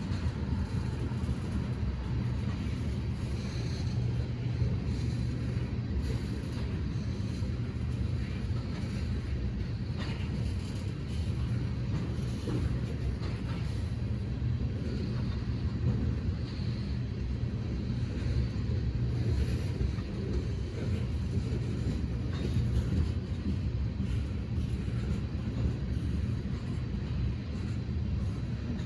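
Train rumbling steadily with a low, even engine hum.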